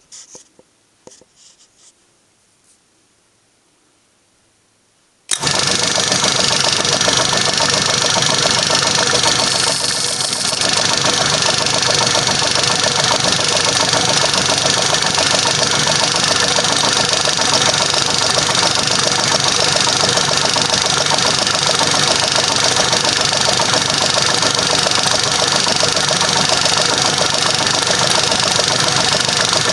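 A few faint clicks. About five seconds in, an old Atlas metal lathe comes in suddenly and runs loud and steady with a dense mechanical drone, while a twist drill in its tailstock chuck bores into the end of a stainless steel rod.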